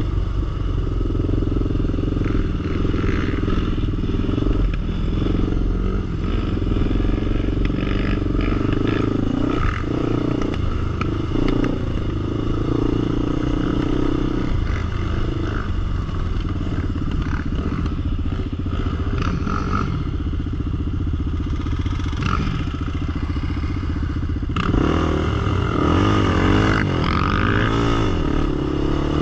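Sport quad (ATV) engine running at varying throttle, with some clatter. Near the end it revs up and down in quick swings.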